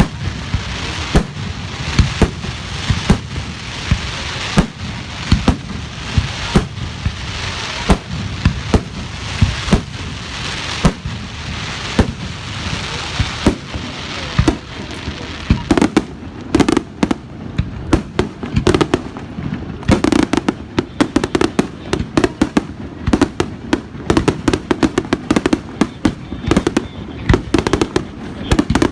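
Fireworks display: a continuous barrage of sharp bangs over a hissing crackle, turning into a much denser, rapid volley of bangs over the second half.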